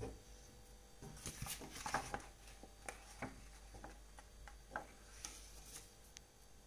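Faint, irregular light taps and scratches from watercolour painting tools, a brush working on paper and palette. They come in a cluster of a dozen or so over a few seconds, over a faint steady hum.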